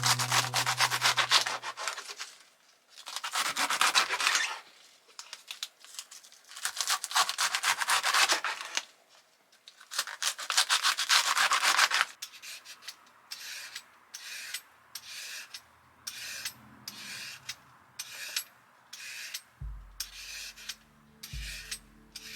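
Repeated rubbing strokes of a hand tool across a surface: long strokes of a couple of seconds each at first, then shorter strokes about once a second in the second half.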